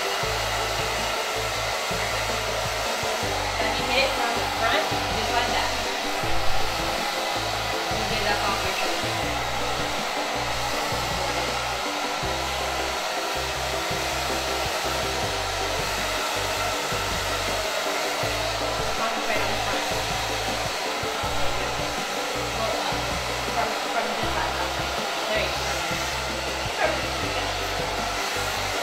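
Hand-held hair dryer blowing steadily on its low setting as it is aimed at the hair, with a few brief clicks on top.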